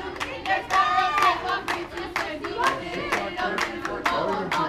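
Softball players' dugout cheer: young voices chanting a sing-song cheer in unison over quick rhythmic clapping, about three claps a second.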